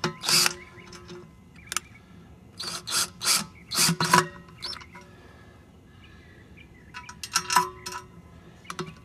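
Intermittent scraping, rubbing and clinking of assembly parts and screws being handled, in several short bursts with a quieter stretch in the middle.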